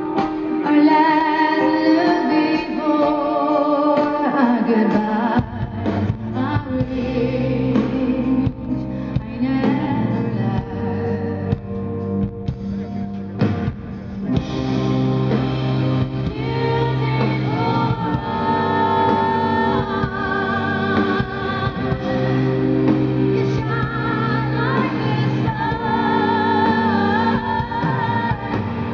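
Live rock band with a woman singing lead over electric guitar, bass and drums through a concert PA. A low bass line comes in about five seconds in.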